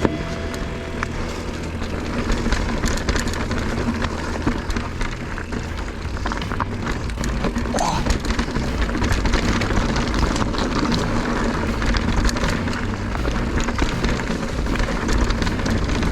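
Mountain bike riding fast down a rocky dirt trail: steady wind rush on the microphone and tyre noise, with frequent rattling clicks as the bike goes over rocks and roots.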